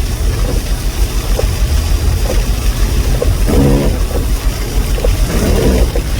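Strong storm wind buffeting the microphone and vehicle, a heavy, steady low rumble. A faint tick comes about once a second, and two short pitched sounds come through about halfway and near the end.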